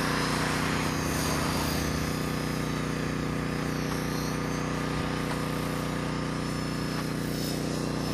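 Align T-Rex 450 XL CDE electric RC helicopter in flight: the steady hum of the spinning rotor blades under the high whine of its electric motor and gears. The whine rises and falls a little in pitch as it manoeuvres.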